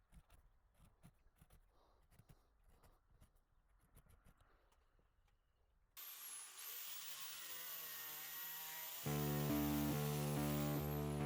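Faint scattered clicks and rubbing, then about six seconds in a sudden loud rushing noise with a high whistle, and near the end background music with a deep steady bass comes in.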